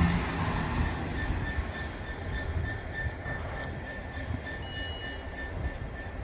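Class 170 Turbostar diesel multiple unit running past on the track, a dense rumble of engine and wheels that fades over the first couple of seconds and then holds at a lower level. A faint high-pitched beep repeats a few times a second behind it.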